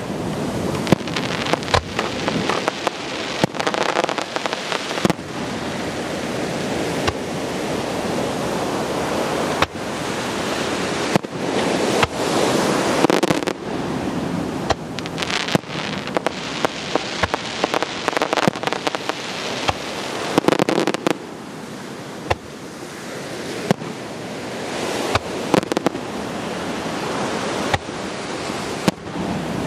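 Aerial fireworks shells bursting in a continual series of sharp bangs, often several close together, over a steady rushing noise.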